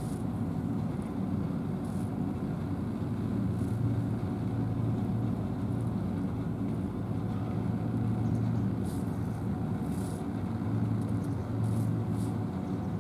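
Steady low drone of an engine running, with a hum that swells a little now and then, and a few faint high ticks.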